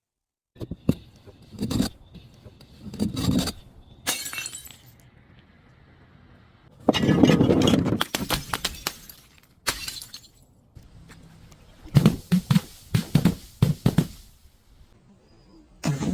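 Glass being crushed, cracking and crunching in a series of bursts. The loudest is a long crunch about seven seconds in, and a quick run of sharp cracks follows about twelve seconds in.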